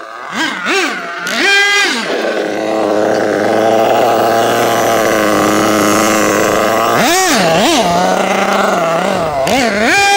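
Two-stroke nitro glow engine of a Losi 8IGHT-T 1/8-scale truggy, revving up and down in quick throttle blips. It then runs at a steady, fairly high speed for several seconds, and blips up and down again near the end.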